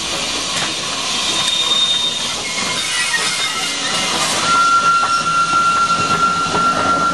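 Small steam saddle-tank locomotive and carriage passing close by, steam hissing over the run of wheels on the rails. From about halfway a single steady high squeal sets in and holds.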